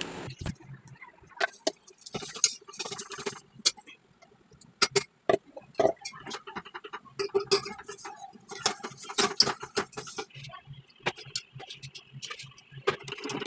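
Steel ladle stirring blended carrot into milk in a stainless steel pot, scraping and clinking against the metal in irregular taps and short scrapes.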